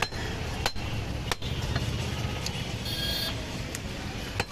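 A butcher's heavy knife chopping through ribs onto a wooden chopping block: three sharp chops in the first second and a half, and another near the end.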